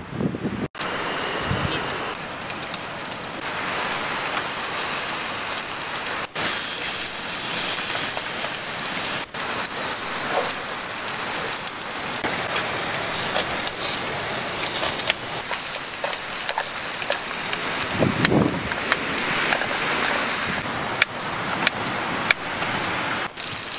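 Steady hiss of light rain on a tent mixed with pork sizzling in a small pan on a gas canister camp stove. Near the end come a few knife taps on a wooden chopping board.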